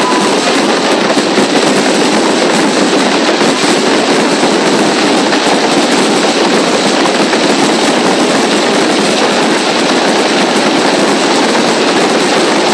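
Fireworks display going off continuously: a dense, unbroken crackle of countless small pops from fountains and crackling stars, steady in loudness, with no single bang standing out.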